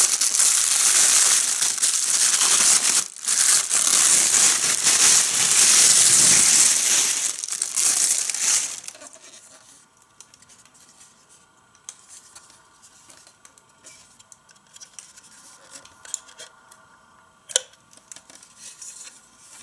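Paper and plastic-bag wrapping crinkling and tearing as a toy playset is unwrapped, for about eight seconds. After that it is much quieter, with light clicks and taps from the hard plastic playset being handled and one sharper click near the end.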